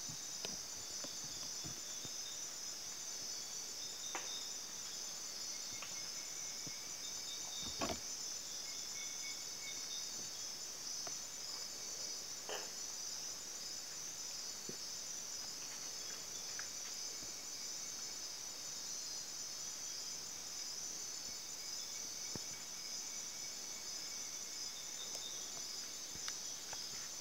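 Night-time rainforest insect chorus: a steady high-pitched trill that never lets up, with fainter chirping calls coming and going. A few short faint snaps break in, the sharpest about eight seconds in.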